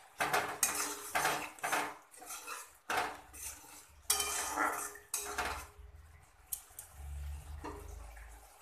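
A metal spatula scraping and stirring through a thick spice paste in a metal kadai, with a quick run of scrapes and knocks against the pan that stops about six seconds in. The masala is being fried down (kosha) until cooked.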